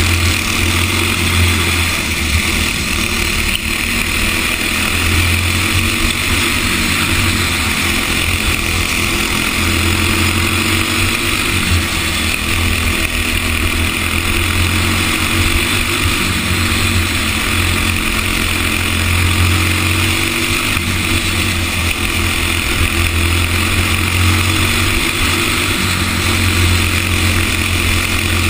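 Racing go-kart engine running hard at speed, heard from on board, its pitch fairly steady with small rises and dips. Wind rushes over the microphone throughout.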